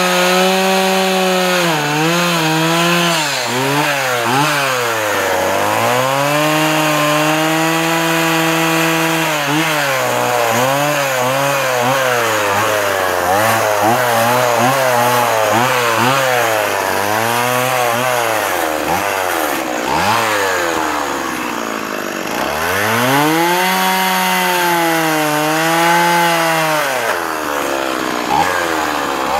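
Stihl MS170 small two-stroke chainsaw carving into a wooden post, its engine revving up and easing back over and over as the chain cuts, dropping lower for a few seconds a couple of times.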